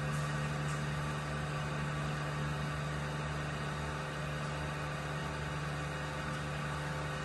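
Vacuum pump running steadily with an even electric-motor hum, drawing a vacuum on a closed sigma mixer's chamber.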